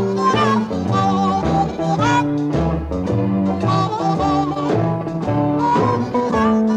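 Blues recording with harmonica and guitar over a steady band rhythm.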